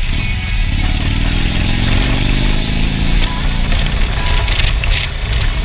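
Motorcycle engine accelerating, its pitch rising over a couple of seconds, over wind and road noise.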